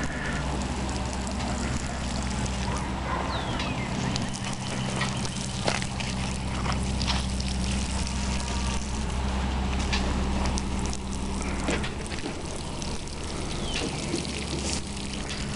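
Water pouring steadily from a plastic watering can onto the soil and grass at the centre of a planting hole. A steady low hum runs underneath and eases off about twelve seconds in.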